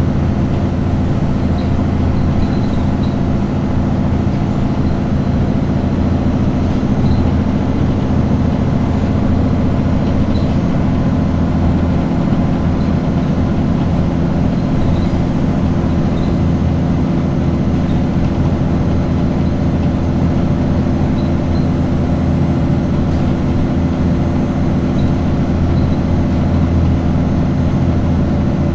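Cummins ISBe5-225B six-cylinder diesel engine of an Alexander Dennis Enviro200 Dart bus running with a steady, unchanging note.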